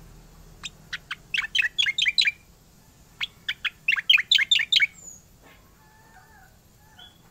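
Caged cica koreng (striated grassbird) singing its rolling song: two fast runs of sharp, falling whistled notes, each run packing its notes closer together. The first run starts about half a second in, the second about three seconds in, followed by a few faint soft notes.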